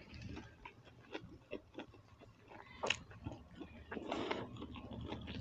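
Close-miked eating sounds: chewing pasta and roti, with fingers tearing roti and scooping food from steel plates in a run of small clicks and crackles. One sharper click comes about halfway through.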